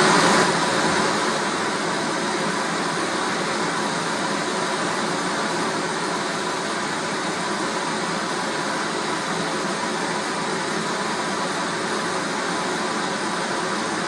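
Pink noise test signal played loud through a motorcycle audio system's speakers on amplifier channels 1 and 2, used for tuning against a real-time analyser. It is a steady hiss that starts abruptly, with little deep bass in it.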